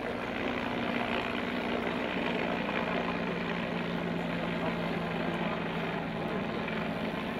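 Helicopter engine and rotor running steadily overhead, a constant hum with no break.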